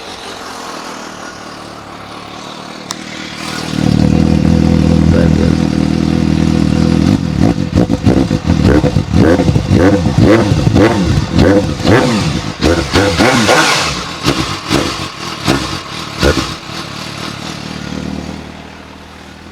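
Suzuki GSR 750's inline-four engine running on its stock exhaust. It idles, is held at raised revs from about four seconds in, then is blipped up and down repeatedly before dropping back to idle near the end.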